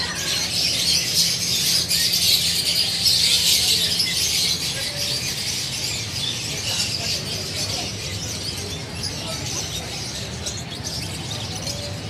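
A dense chorus of many caged small birds chirping and twittering at once, louder for the first few seconds and then thinning out.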